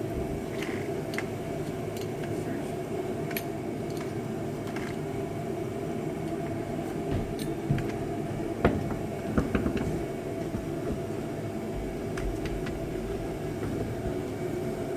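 Power drill running a hole saw steadily, with a few sharp knocks about halfway through.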